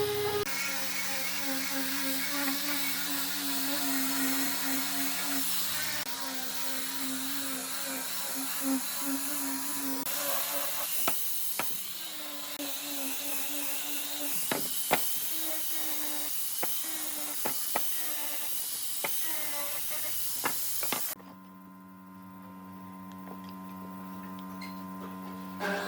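An electric woodworking power tool running with a wavering whine over a steady hum, with scattered sharp clicks and knocks in the middle stretch. About three-quarters of the way through it cuts off, leaving a quieter steady hum.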